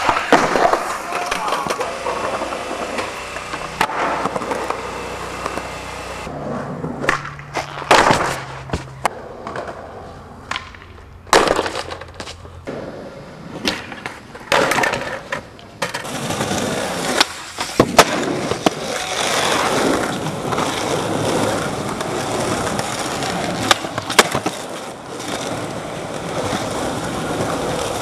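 Skateboards on concrete: wheels rolling with a steady grinding noise, broken by many sharp clacks of boards popping and landing across several tricks. The middle stretch is quieter, with a handful of separate loud clacks.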